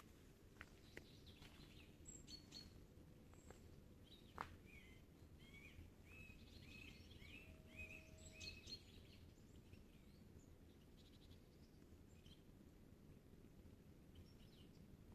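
Faint forest birdsong: a bird repeats a short note about twice a second for several seconds in the middle, with scattered chirps before and after, over a low steady rumble of background noise.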